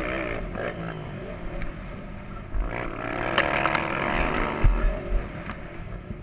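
Motocross dirt bike engine revving up and easing off through the track, with low thuds on the mic and the engine dropping away near the end.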